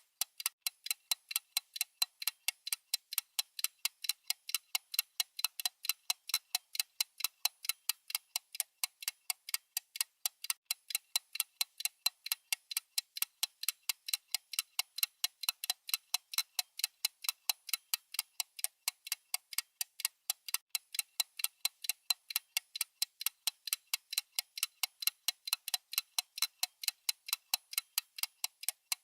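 Mechanical timepiece ticking, a fast, even run of sharp ticks several times a second that never breaks.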